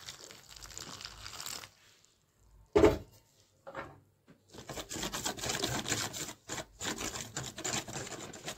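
Spoon stirring flour and spices in a steel bowl, scraping against the metal. There is a single loud thump just under three seconds in. From about halfway through, the spoon mixes the flour with water into batter in a dense run of scraping and clicking.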